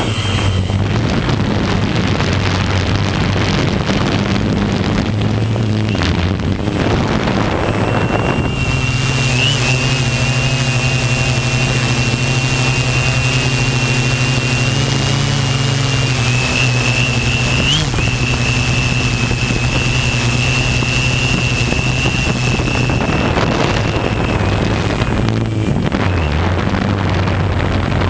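Multirotor drone's electric motors and propellers buzzing steadily, heard close from its on-board camera, with a rushing hiss over them. A thin high whine comes in about a third of the way through and fades out near the end.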